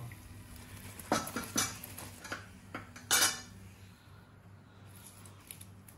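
Metal clinks and knocks of a wire-mesh frying basket and steel utensils against the pan and a steel worktop as fried samosas are lifted out and carried over. There are about half a dozen sharp knocks, the loudest clatter about three seconds in, over a steady low hum.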